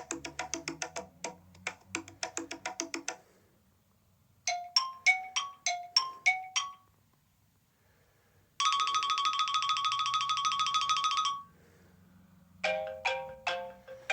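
A run of iPhone SE classic ringtones, one after another with short gaps. A rapid plucked-string melody stops about three seconds in, then a short chiming phrase of six rising note pairs, then a fast trilling ring held for about three seconds, and near the end another chiming melody begins.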